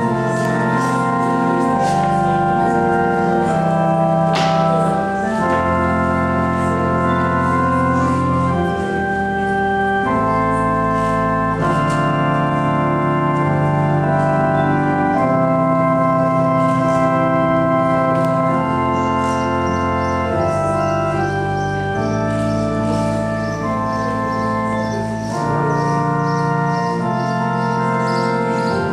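Church organ playing sustained chords that change every second or two.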